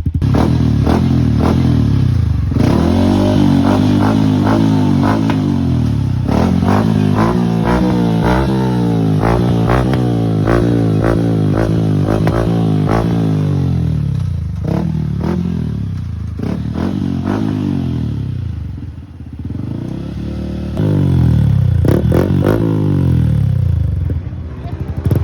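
Yamaha Sniper 155's single-cylinder four-stroke engine revving again and again through a TRC Power Pipe aftermarket exhaust, its pitch climbing and falling with sharp pops scattered through the revs. It settles lower for a moment about three quarters of the way in before revving up again, with a full, solid tone.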